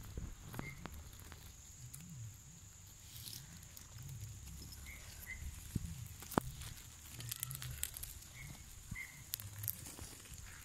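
Rustling and handling noise as a phone is moved through grass close to the ground, with a few sharp clicks. A faint steady high-pitched tone and several faint short chirps sit in the background.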